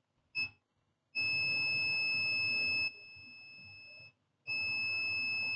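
Multimeter continuity buzzer beeping as the probes are put on a capacitor on the laptop motherboard: a brief chirp, then two steady high beeps of about a second and a half each. The beeping shows the capacitor's rail still reads as shorted after the MOSFET was replaced.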